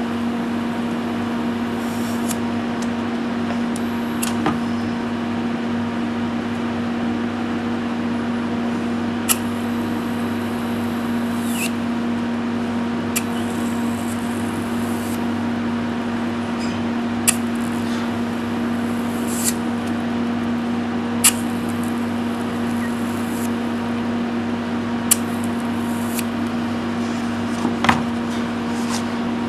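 A carbon fibre electro-polishing brush worked over a stainless steel weld, giving a sharp crackle every couple of seconds. These are the small hydrogen-bubble pops that show the electrolyte is still strong. Under them runs a steady hum.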